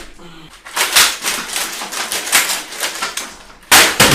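Plastic computer keyboard being battered, its keys clattering in a dense run of rapid clicks, then a hard bang of it striking something about three and a half seconds in.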